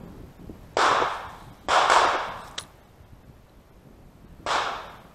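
Three shotgun shots: the first two about a second apart, the third about three seconds later. Each has a short fading tail.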